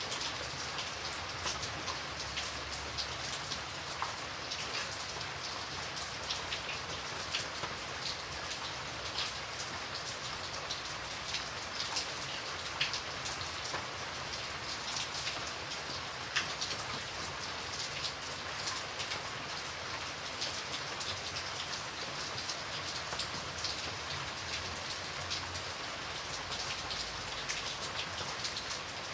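Light rain falling steadily: an even patter with many separate drops ticking sharply on a surface.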